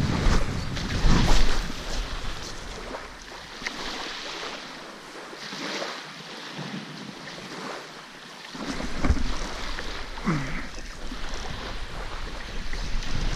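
Wind buffeting the microphone over small waves washing up on a shelly, gravelly beach. The wind rumble dies away for several seconds in the middle and picks up again about two-thirds of the way in.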